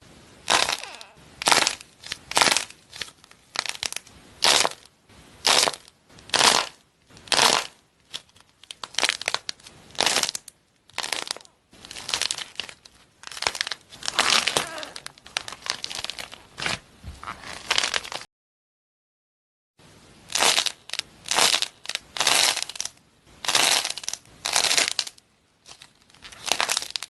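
Crunchy slime being pressed and squeezed, crackling and popping about once a second, then in denser runs of crackles. A brief break comes about two-thirds of the way through.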